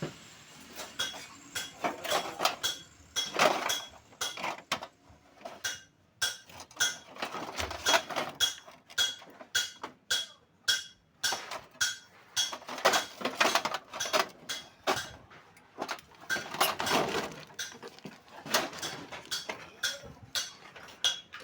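Irregular metallic clinks and knocks, many in quick succession, some with a brief ringing tone, as of metal tools or parts being handled and set down.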